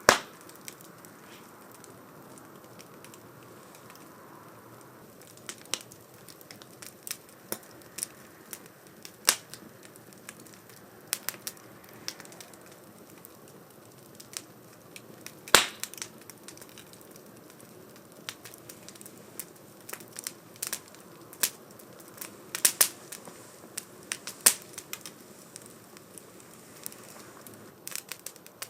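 Firewood burning in a small wood stove, crackling with irregular sharp pops and snaps over a soft, steady hiss; the loudest pop comes about halfway through.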